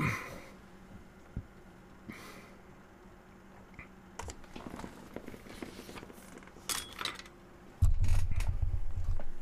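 Faint scattered clicks and rustles, then about eight seconds in a loud low rumble for about a second and a half: handling noise from a microphone in its shock mount being grabbed and moved.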